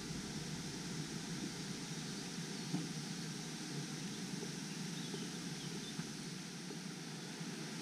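Steady forest ambience: an even rushing noise of wind through the trees, with a faint knock a little under three seconds in.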